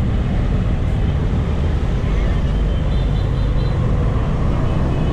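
Busy street traffic: a steady rumble of motorbike and car engines passing close by, with a brief faint high tone about three seconds in.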